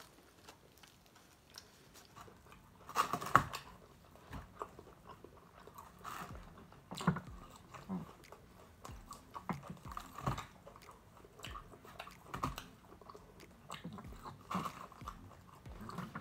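Eating whole fried chicken wings: biting, chewing and smacking in irregular bursts, loudest about three seconds in.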